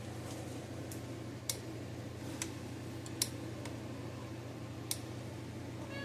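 Cyclops Brute 12-volt battery fence charger pulsing, a sharp tick about every 1.7 seconds with fainter clicks between, over a steady low hum. The repaired unit is firing its output pulses normally, putting out about 7,000 volts.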